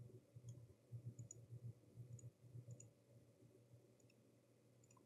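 Near silence with a handful of faint computer mouse clicks scattered through it.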